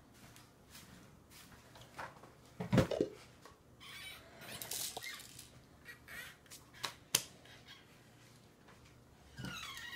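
Baby's hands knocking and spinning a plastic spinning-wheel toy on a high-chair tray: a thump about three seconds in, a short rattling stretch, and a couple of sharp clicks.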